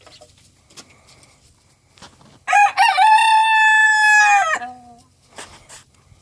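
A rooster crows once, starting about two and a half seconds in: a single loud cock-a-doodle-doo of about two seconds, held on one pitch and dropping off at the end.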